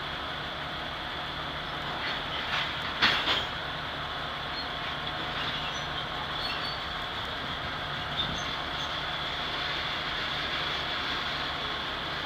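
Loaded covered hopper grain cars of a freight train rolling past, a steady noise of steel wheels on rail, with a few sharp clanks about two to three and a half seconds in.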